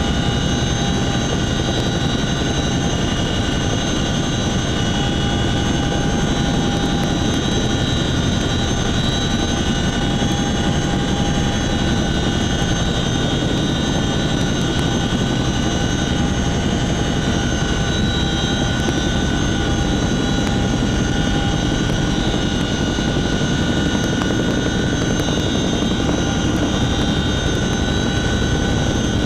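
CH-47 Chinook helicopter hovering low, heard from inside the cabin through the open cargo-hook hatch: a loud, steady rotor and turbine drone with several steady high whining tones over it.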